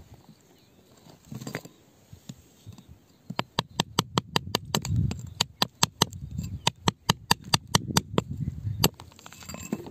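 A quick series of sharp clicks or taps, about five a second, starting about three and a half seconds in and stopping shortly before the end, over a low rumble.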